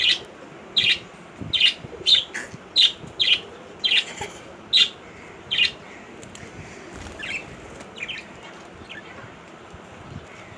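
A young pet bird giving sharp, short chirps, about two a second at first, then fewer and fainter ones that stop near the end.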